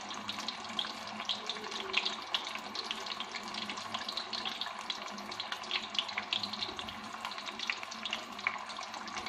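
Battered fish pieces deep-frying in hot oil in a wok over a medium flame: a steady sizzle dotted with many small crackles and pops.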